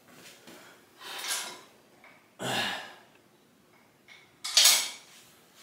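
A man's heavy breathing after an exercise set: three loud, hissy exhales about a second and a half apart, the last one the loudest.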